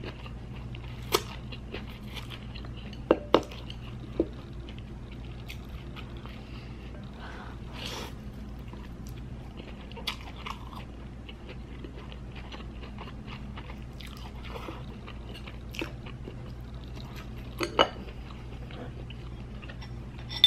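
Close-up eating sounds: noodles being slurped and chewed, with a few sharp clicks of chopsticks and dishes, the loudest about three seconds in and again near the end, over a steady low hum.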